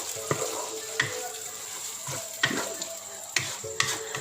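Chili paste (sambal) sizzling in oil in a pan while being stirred, with several sharp knocks of the utensil against the pan.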